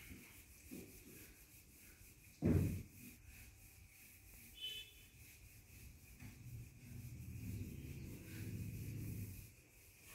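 Whiteboard eraser rubbing across a whiteboard as the board is wiped clean. The rubbing strokes are loudest in the second half. A single sharp knock comes about two and a half seconds in.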